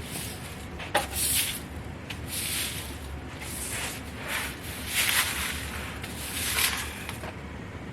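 Broom sweeping a garage floor: a series of brushing strokes, about one a second, with a single sharp click about a second in.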